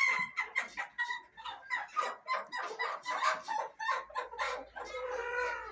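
A flock of chickens clucking and calling together in many short, overlapping calls, with one longer drawn-out call near the end.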